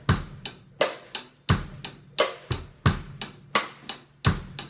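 A steady drum-kit groove: hi-hat strokes with cross-stick clicks on a Mapex hand-hammered steel snare and bass drum hits, the strongest hits coming about every three quarters of a second.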